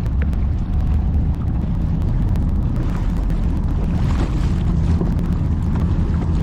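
Wind rumbling on the microphone of a kayak on open water, with water splashing around the hull.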